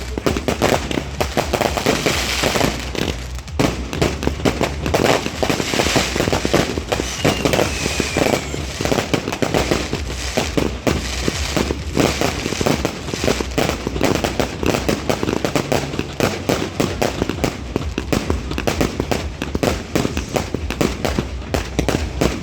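Many fireworks going off at once: a dense, continuous barrage of bangs and crackling with no pause, and a faint falling whistle about seven seconds in.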